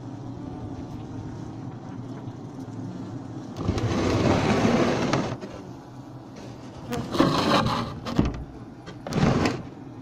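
Steady low hum of a honeybee colony inside a Japanese beehive, with a loud rustling rub a little over three seconds in and two shorter scrapes near the end as the camera is moved against the hive.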